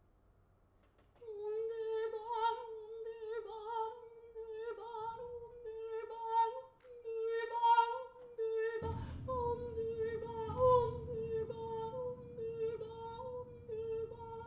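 A single held note from a performer at an open grand piano, wavering slightly in pitch and swelling and fading in loudness, entering about a second in. About nine seconds in, a low rumbling resonance joins under it.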